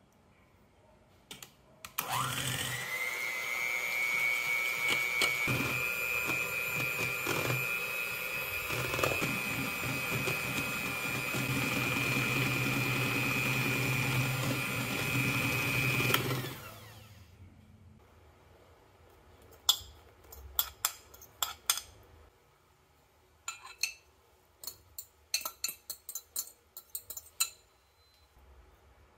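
Electric hand mixer switched on, spinning up to a steady high whine as its beaters whip heavy cream in a stainless steel bowl, running for about fourteen seconds before switching off. After a pause, a string of sharp clicks and taps.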